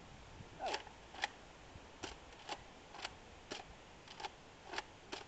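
A wet Nerf Raider blaster being worked, giving a string of short, sharp clicks at about two a second; it has been jamming.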